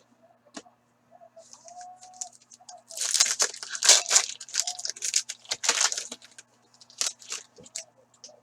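A foil hockey card pack wrapper being torn open and crinkled, loudest from about three to six seconds in, followed by a couple of sharp clicks.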